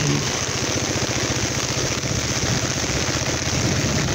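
Motorcycle engine running steadily under way, its exhaust a fast, even low pulse over a steady hiss.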